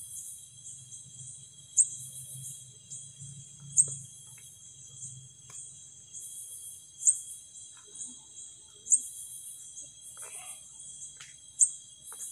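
Night insects calling: a sharp, very high-pitched chirp, the loudest sound, comes five times at uneven gaps of about two to three seconds, over a steady high-pitched insect trill.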